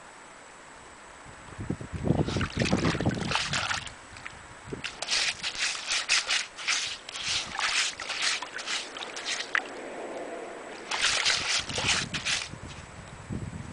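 A Curly Coated Retriever's front paws digging in shallow water and wet sand, splashing and sloshing in quick strokes, about two or three a second, in bursts with short pauses between.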